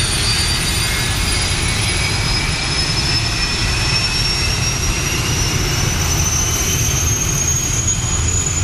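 English Electric Lightning's twin Rolls-Royce Avon turbojets running on the ground while warming up: a steady, loud rush with a high whine that slowly rises in pitch.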